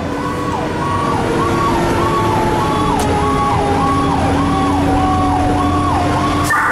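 Fire engine's siren cycling up and down about twice a second over the truck's engine running, heard from inside the cab while the engine drives on an emergency response.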